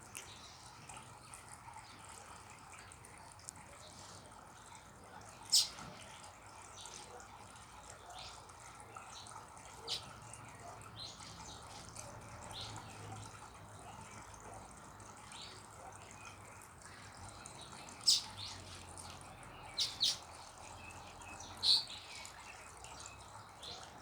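Birds chirping: a few short, sharp, high chirps spaced several seconds apart, one quick double chirp about twenty seconds in, and fainter chirps in between.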